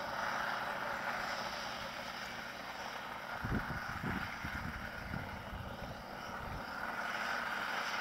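New Holland TC56 combine harvester running steadily as it threshes rye, a constant machine hum.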